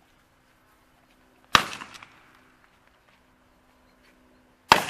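Two shotgun shots about three seconds apart, each a sharp report that dies away quickly; the second comes near the end.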